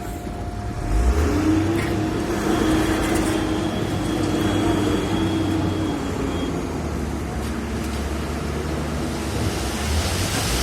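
Heavy diesel road-construction machinery running steadily, its engine note growing louder about a second in.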